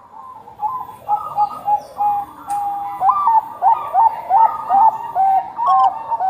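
Zebra doves of the Bangkok perkutut type cooing in fast, repeated phrases of short clipped notes, with several coo phrases overlapping at different pitches.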